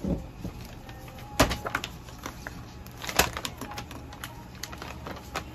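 Paper records being handled on a counter, with a few sharp clicks and taps of small objects among them, the loudest a little over a second in and again about three seconds in.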